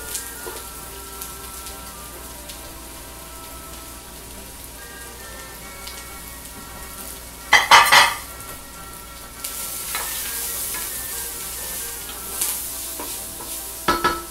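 Onions and mushrooms sautéing in a hot stainless-steel skillet: a steady sizzle, with a loud scrape and clatter of stirring about eight seconds in, after which the sizzle is louder.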